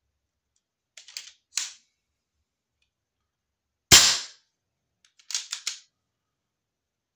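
An air gun fires a single pellet shot about four seconds in, a sharp crack that rings out briefly. The chronograph clocks it at 569 fps, about 11 foot-pounds. Fainter sharp clicks come a couple of seconds before the shot and again just after it.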